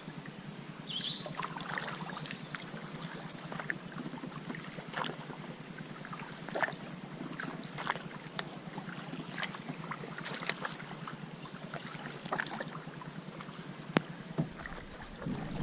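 Water lapping and slapping against the hull of a moving canoe, small irregular splashes and ticks over a steady faint hiss. Wind starts buffeting the microphone near the end.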